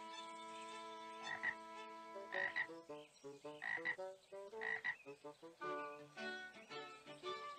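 A frog croaking, four separate croaks about a second apart.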